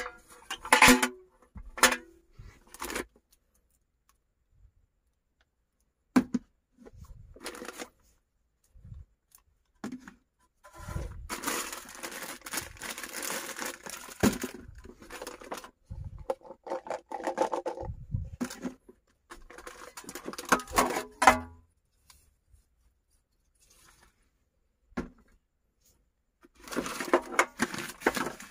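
Intermittent handling sounds in a small space: crinkling and rustling like packaging or plastic being worked, with scattered clicks and knocks and silent gaps between them.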